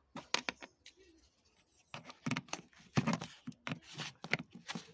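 Irregular clicks and scrapes of a T20 Torx screwdriver unscrewing screws on a car's cabin filter housing. A few clicks come first, then a short pause, then a dense run of clicks from about two seconds in.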